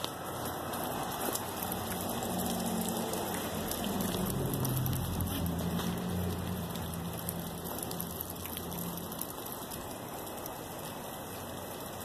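Falling wet snow making a steady rain-like noise with many small ticks, the wet flakes landing and melting. A low hum rises in the middle and fades again.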